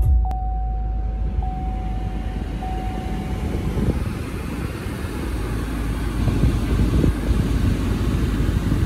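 Cadillac Escalade ESV's 6.2-litre V8 idling just after start-up, heard from inside the cabin as a steady low rumble. A cabin chime tone repeats about every second and a quarter and stops a few seconds in.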